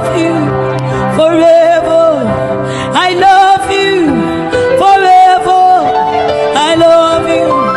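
Gospel worship music: long, wavering melodic notes that slide downward, over sustained keyboard chords, with some singing.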